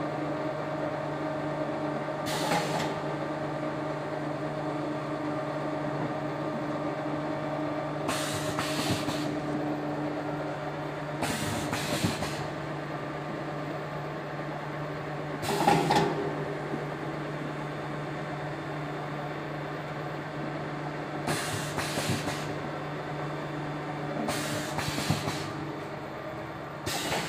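Detergent-cake production line running: the motor of the bar extruder and conveyor hums steadily, and short hisses of compressed air from the pneumatic cutter break in every few seconds.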